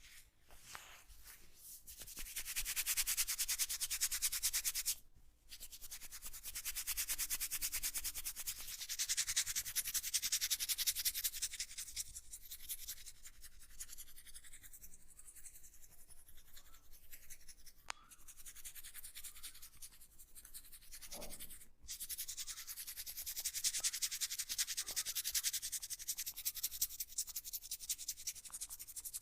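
Fingertips scrubbing and rubbing briskly through hair on the scalp during a head massage: a rapid, scratchy rustle that swells and eases in long spells, with two brief pauses.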